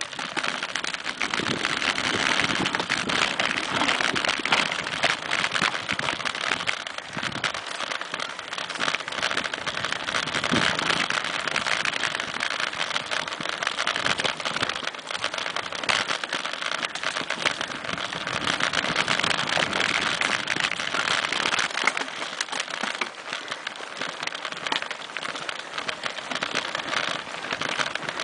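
Mountain bike riding over a dry dirt singletrack: tyres rolling over grit and dry leaf litter make a steady, dense crackle of tiny clicks, with small knocks from the bike over bumps.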